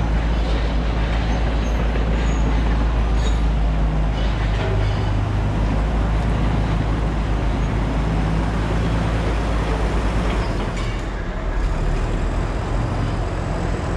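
Steady low rumble of motor traffic.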